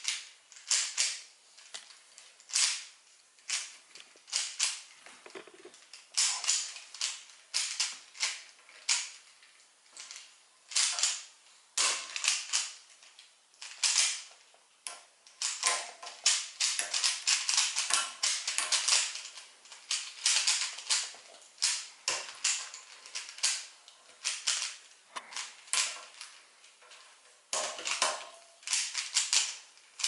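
A 3x3 Rubik's cube being turned one-handed in a speedsolve: rapid runs of sharp plastic clicks as the layers snap round, in bursts broken by short pauses.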